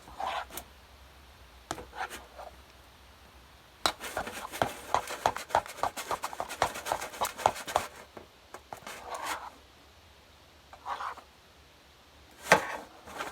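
Spoon stirring and scraping a sticky homemade slime mixture in a bowl. About four seconds in comes a run of quick scraping clicks, roughly five a second, for about four seconds. A few single scrapes fall before and after it.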